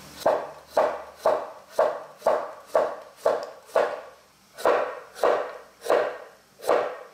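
Kitchen knife slicing a cucumber on a wooden cutting board: short, even knocks of the blade hitting the board about twice a second, with a brief pause after about four seconds.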